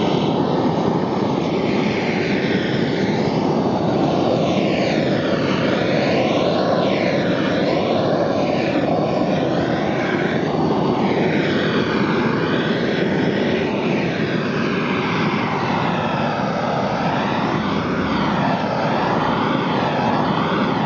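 Gas burner flame burning with a loud, steady rushing noise, its tone sweeping up and down as the flame moves about.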